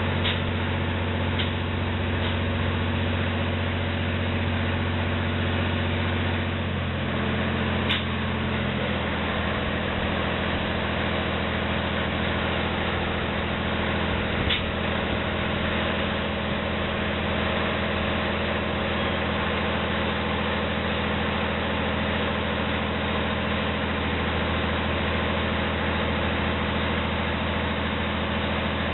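Large diesel engine idling steadily. About seven seconds in, its note shifts as the engine speed changes, and a few faint knocks sound over it.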